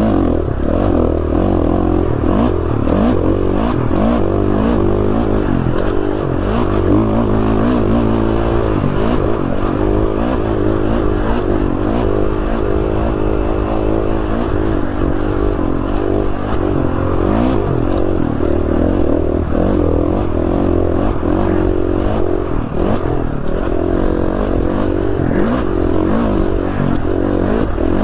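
KTM dirt bike engine under way, its pitch rising and falling again and again with the throttle, with short knocks and rattles from the bike over the rough track.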